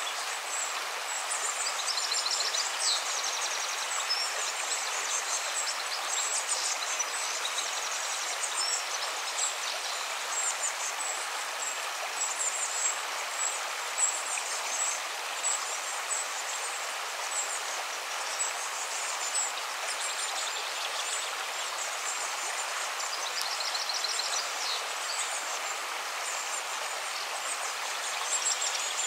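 Steady rushing of running water, like a stream, with short high trilling chirps now and then.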